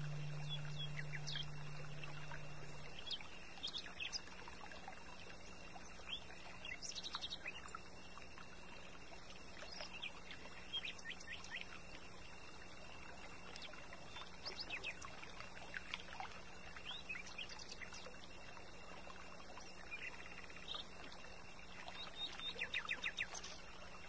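Steady rush of a mountain stream, with small birds chirping in short high bursts over it. A low held musical note fades out in the first few seconds.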